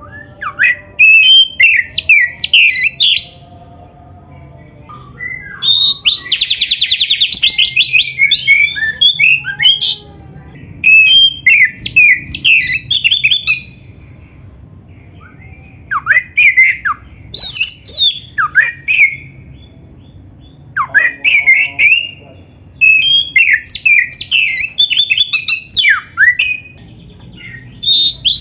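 Oriental magpie-robin (kacer) singing loudly in repeated bouts of rapid, sharply gliding whistles, chirps and harsher squawky notes, with a fast buzzing trill in one bout and short pauses between bouts. It is a full, varied song packed with mimicked phrases.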